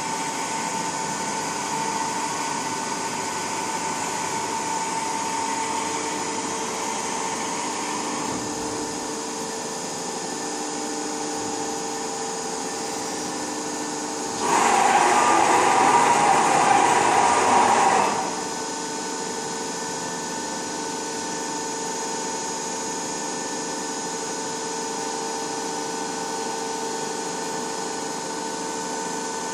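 Ermaksan Power-Bend Pro CNC hydraulic press brake running with a steady, tonal hum while its axes home to their reference positions. Past the middle a louder whirr lasts about four seconds, then the steady hum returns.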